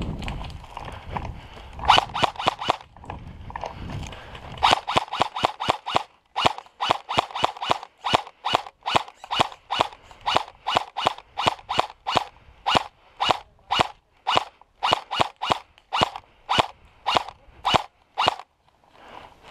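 Footsteps through wet grass, a regular run of short swishing steps that starts about two seconds in and goes on nearly to the end.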